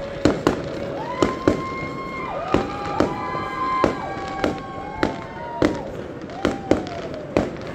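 Fireworks display: aerial shells bursting in quick, uneven succession, several bangs a second. Over the bangs come several high whistles, each held about a second, overlapping one another.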